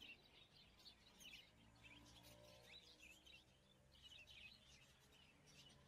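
Faint birds chirping over a low background hum, with repeated short high chirps throughout.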